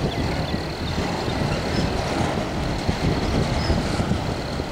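Autorack freight cars rolling slowly past on steel wheels: a steady rumble of wheels on the rails with a dense run of low knocks.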